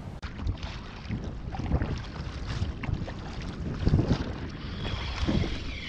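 Kayak paddle strokes dipping and splashing in sea water, a louder splash every second or so, with wind rumbling on the microphone.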